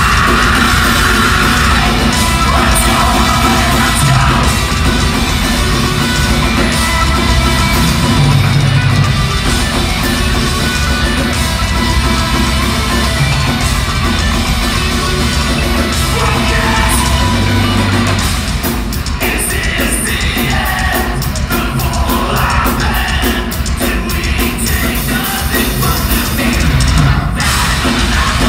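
Metalcore band playing live at full volume: distorted electric guitars, bass and drums with shouted and sung vocals, heard from within the crowd in a large hall. The song changes section about two-thirds of the way through.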